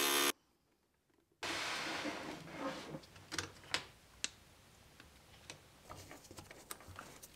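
A glass grinder's running noise cuts off abruptly a moment in. Then a faint fading hiss, followed by scattered light clicks and taps of lead came strips and glass pieces being handled and fitted with pliers on a workboard.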